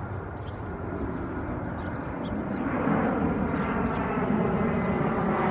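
Jet airliner passing overhead: a steady engine noise that grows louder from about halfway through. A few short bird chirps sound above it.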